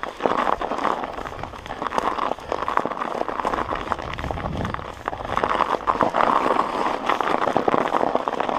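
Mountain bike tyres rolling and crunching over packed snow, with a steady crackle of fine clicks.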